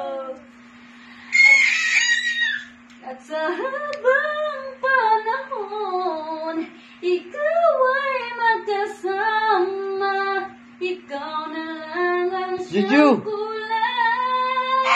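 A woman and a baby take turns singing wordless, sliding notes at each other, the baby copying the mother's belted singing. There is a high squeal about a second and a half in, a short call near the end, and a faint steady hum underneath.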